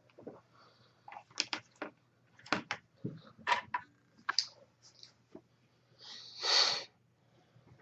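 Irregular clicks and taps of small metal laptop screen-mounting brackets and screws being handled and fitted to a replacement screen, with a short louder rustling scrape near the end.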